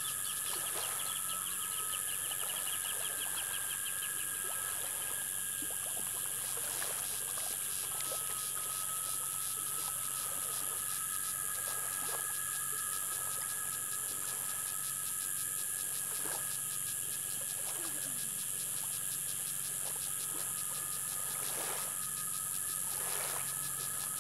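Insects and frogs calling in a steady chorus: a continuous high buzz and fast trilling, with two steady pitched tones beneath and a few short sweeping calls.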